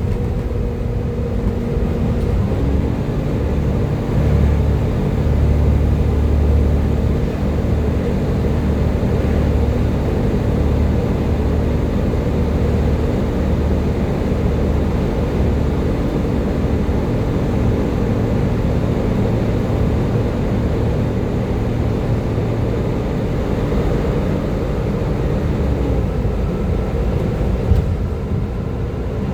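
Volvo B7TL double-decker bus running under way, with a steady low engine rumble and a sustained whine, the "hoover" sound these buses are known for. The whine steps up in pitch a couple of seconds in and drops back a few seconds before the end.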